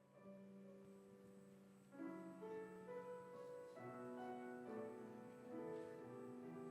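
Soft instrumental intro on piano or keyboard: a held chord, joined about two seconds in by a slow melody of piano notes.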